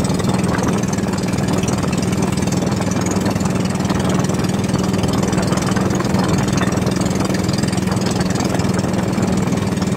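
Engine of a motorized outrigger fishing boat running steadily under way while trolling, one even drone that does not change.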